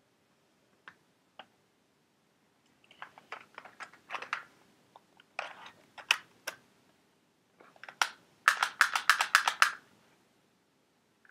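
Clicks and clatter of hard plastic being handled: scattered single clicks, then a quick run of about ten clicks near the end.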